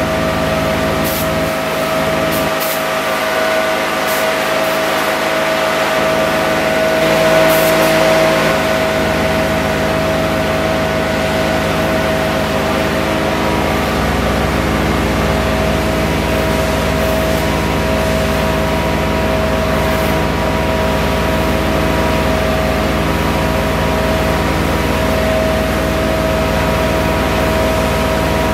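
A pressure washer at work: the steady drone of its engine-driven pump under the hiss of a water jet spraying against a truck and the concrete floor.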